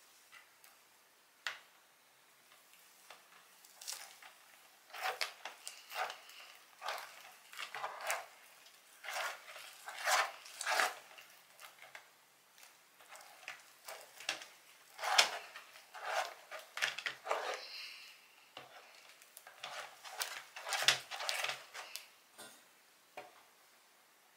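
Homemade slime being stirred and squished in a container, heard as a run of irregular wet squelches and scrapes that begin a few seconds in.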